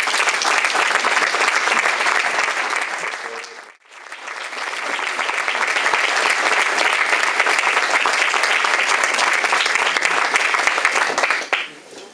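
An audience applauding, steady and loud, breaking off abruptly for a moment a little before four seconds in, then resuming and dying away near the end.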